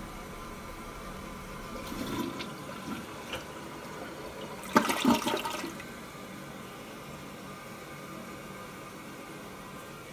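Toilet flushing: water rushing and running in the bowl and tank, with a short louder clatter about five seconds in.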